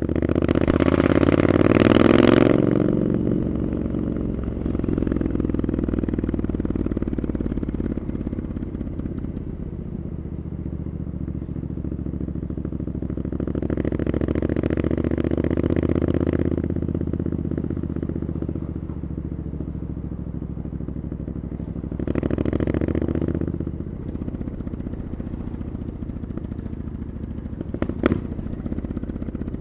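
Triumph Scrambler 900's parallel-twin engine running through an aftermarket Arrow exhaust while riding. It swells louder three times, at the start, mid-way and about three-quarters through, and settles to a steady cruise in between. A single sharp knock comes near the end.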